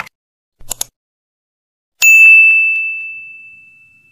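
Subscribe-button sound effect: a quick couple of clicks, then about two seconds in a single bright bell-like ding that rings and fades away over about two seconds.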